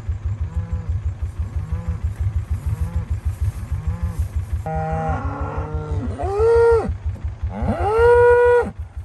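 Black beef cows mooing at close range, with two long, loud moos that rise in pitch and then hold, about six and eight seconds in. A steady low pulsing rumble runs underneath.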